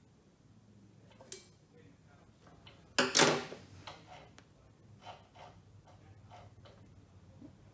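Small metal hand tools clinking and clattering as they are handled at an engine stand: a sharp click about a second in, a louder clatter about three seconds in, then several light taps.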